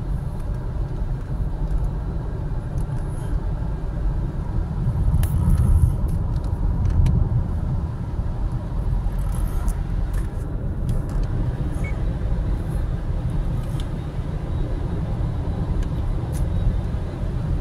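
Car cabin road noise: a steady low rumble of tyres on a wet highway at cruising speed, with a few faint ticks.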